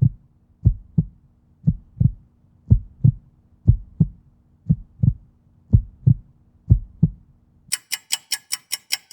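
Heartbeat: paired low thumps, lub-dub, about once a second over a faint steady hum. They stop near the end, where fast, sharp clock-like ticking takes over at about five ticks a second.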